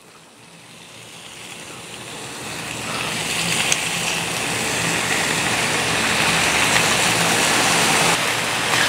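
Sliced ham sizzling on a hot, oiled steel flat-top griddle, a steady hiss that grows louder over the first few seconds and then holds.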